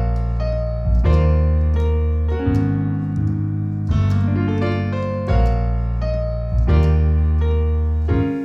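Piano playing slow, sustained chords over a deep bass, with a new chord struck about every second and a half, as the introduction to a song.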